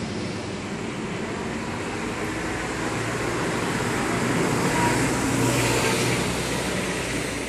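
Street traffic: a vehicle passing, its noise building over a few seconds to a peak and then fading.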